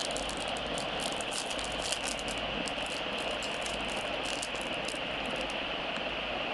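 Clear plastic wrapping crinkling in the hands as a ring is unwrapped, a fast run of crackles that stops about five seconds in, over a steady background hiss.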